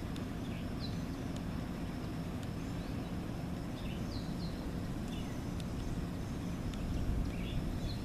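Steady low rumble of outdoor background noise, with faint short bird chirps now and then.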